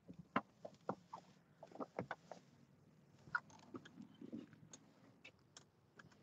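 Faint scattered clicks, taps and soft knocks of a phone being handled and rubbed against clothing as its holder climbs out of a vehicle.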